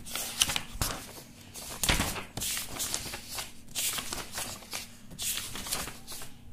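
Pages of a paperback textbook being turned by hand, a run of irregular paper swishes and rustles.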